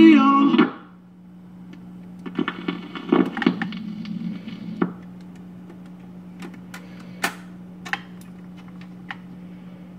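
Music playing from the Admiral record changer stops within the first second. Its changer mechanism then cycles for about two and a half seconds with clunks and rattles as the tone arm lifts and swings back to its rest, leaving a steady low hum broken by a few sharp clicks.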